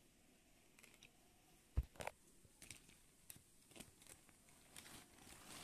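Plastic toys clicking and knocking as they are handled and moved about on a table: scattered light clicks, with one sharper thump about two seconds in.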